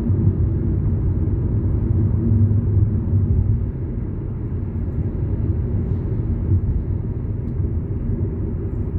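Car engine and tyre noise heard from inside the cabin while driving: a steady low rumble that eases a little under four seconds in.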